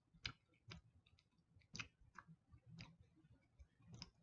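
Faint wet mouth clicks of someone chewing a soft gummy candy: about half a dozen irregular clicks.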